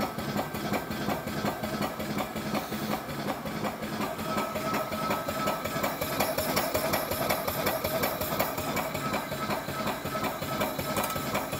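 A restored vintage vertical steam engine running steadily on compressed air, its exhaust making a quick, even beat of puffs. It is running fairly smoothly.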